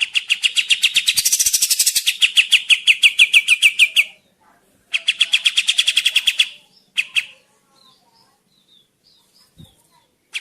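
Kapas tembak bird singing loud, rapid trills of short, slightly falling notes at about ten a second. The first run lasts about four seconds, a second follows after a short pause, a brief burst comes near the middle, and only faint notes follow.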